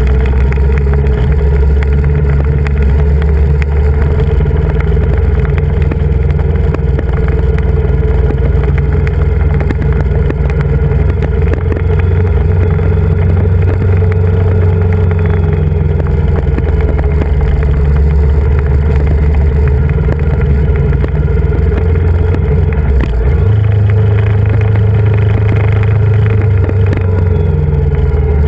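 Motorcycle engine running steadily at road speed, a loud low drone that steps up in pitch near the end.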